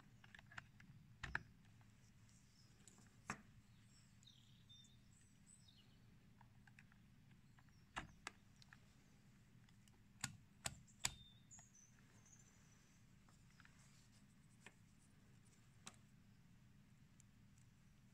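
Faint, scattered clicks and taps from banana-plug test leads being pushed into a digital multimeter's sockets, its rotary dial being turned, and a metal crocodile clip being handled. Three clicks come close together about ten seconds in.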